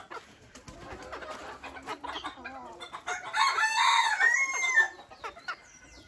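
A rooster crowing once, starting about three seconds in and lasting under two seconds, with chickens clucking quietly before it.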